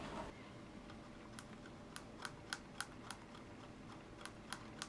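Plastic mixing stick clicking and scraping against a small metal tin lid while stirring two-part epoxy: a run of faint, irregular clicks with a short pause in the middle.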